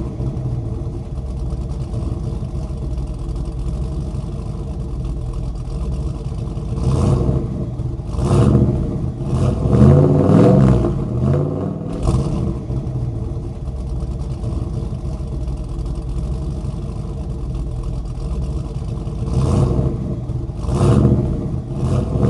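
A vehicle engine running steadily, swelling louder as it revs several times around the middle and again near the end.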